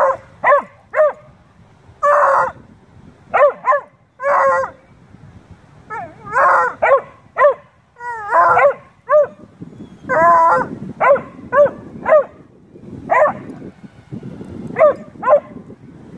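A beagle–shepherd mix and a bluetick coonhound playing and "talking": a run of about twenty short barks, yips and yodel-like calls, some bending up and down in pitch, coming in quick clusters with short gaps between.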